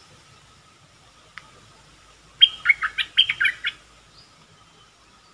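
Caged bulbul (the Thai 'nok dok taeng' decoy bird) gives one quick loud phrase of about eight sharp chirping notes, lasting just over a second, about two and a half seconds in.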